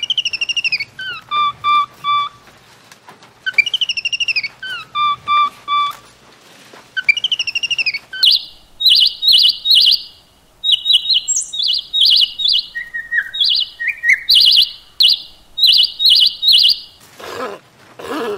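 A series of bird-like calls. First come clear whistled notes, some falling in pitch and some held in short groups of three. Then, from about halfway, many quick, high chattering calls repeat. Near the end a lower, rough animal call sets in, likely a sea lion barking.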